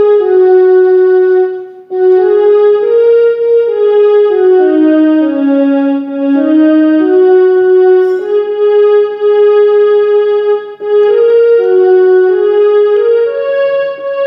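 Casio CTK-2550 portable keyboard playing a slow single-note melody in a sustained voice: each note is held at an even level without dying away, moving stepwise up and down, with two brief breaks between phrases.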